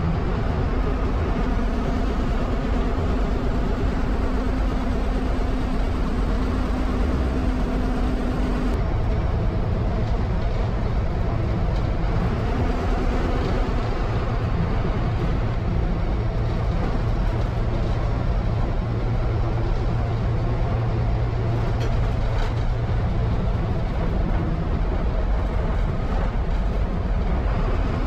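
MSRTC bus diesel engine running steadily under way, heard from inside the driver's cab, with road and tyre noise. Its engine note drops to a lower pitch about a third of the way through and then holds steady.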